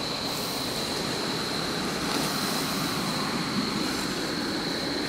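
Steady high-pitched insect trill, typical of a night chorus of crickets, over a steady rushing background noise.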